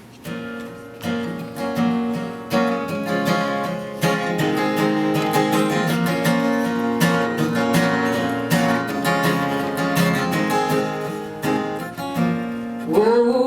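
Acoustic guitar strummed in a steady rhythm, the introduction to the song. A singing voice enters near the end.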